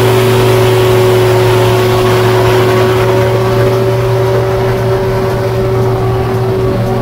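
Rans S-7 bush plane's engine and propeller running at high power, holding a steady pitch after throttling up.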